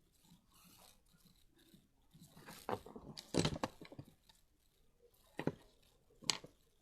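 Toy packaging handled and opened: a cluster of crackles and clicks about three seconds in, then two sharp clicks near the end.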